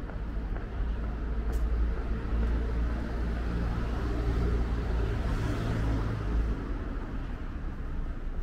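A motor vehicle driving past on a city street, its low engine sound building about a second in and fading away after about six seconds, over steady street noise.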